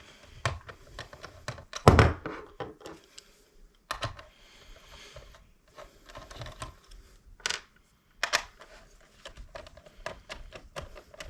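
Irregular light clicks and taps of small plastic and metal parts and a hand tool being handled on a workbench, with one louder knock about two seconds in.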